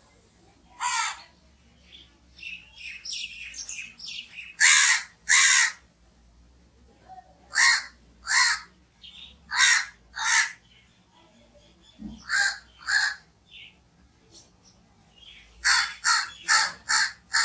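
Crows cawing: harsh calls, often in pairs, with softer calls about two to four seconds in and a quick run of five caws near the end.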